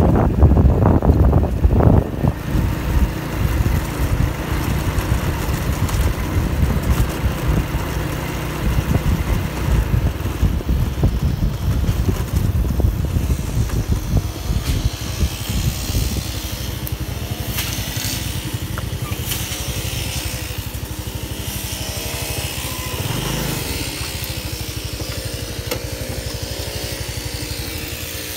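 Small motor scooter running while being ridden, with wind rumbling on the microphone. Louder and gustier in the first few seconds, it settles into a steadier, quieter run in the second half as the scooter slows down.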